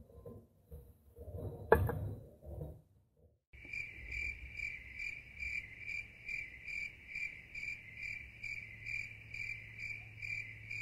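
Insects chirping in a steady, even rhythm, about three chirps a second, starting about three and a half seconds in. Before that, low rustling and handling noise with one sharp clack, the loudest sound, near two seconds in.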